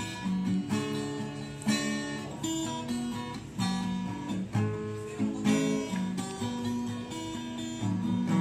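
Acoustic guitar strummed in chords, the intro of a pop song played without singing.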